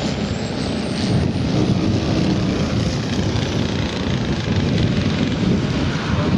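Propeller engine of a large radio-controlled model aircraft running steadily as the model passes low, with a faint high whine slowly rising in pitch.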